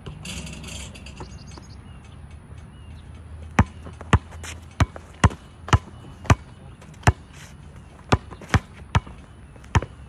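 Basketball dribbled hard on an outdoor asphalt court: a run of sharp bounces, about two a second, starting a few seconds in.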